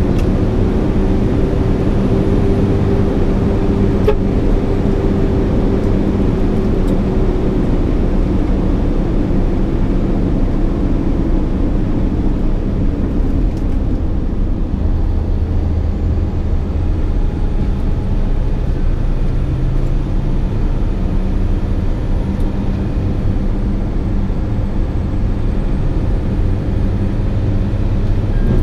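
SANY 6x4 dump truck's diesel engine and tyres running steadily at road speed, heard from inside the cab as a constant low drone. A fainter higher whine rides on top for the first several seconds and then fades.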